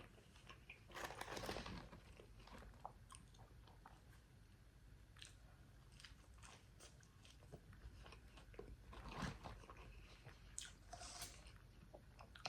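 Faint close-up chewing and biting of French fries with Dave's sauce: scattered small crunches and wet mouth clicks, a little louder about a second in and again near the end.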